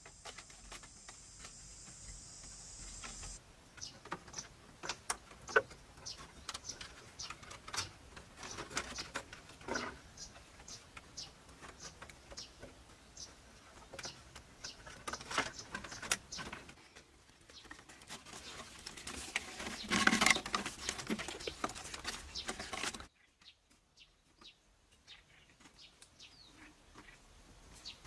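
Bamboo poles and strips tapping, knocking and clattering as they are handled and tied onto a bamboo frame: a string of light clicks and taps, with a louder rattle about twenty seconds in. For the first few seconds a steady high-pitched buzz sounds, then cuts off suddenly.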